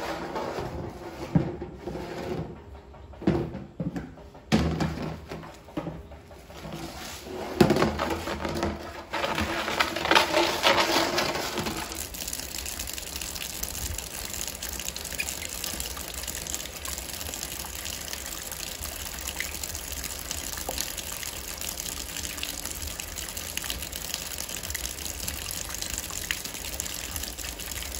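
Water running steadily, a continuous even rush that settles in about twelve seconds in and holds; before it, irregular knocks and scuffs.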